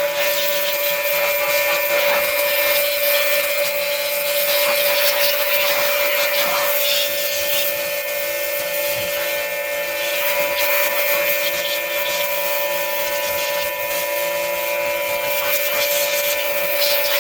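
Pressure washer running steadily: a constant pump whine over the hiss of the water jet spraying the motorcycle frame and plastics.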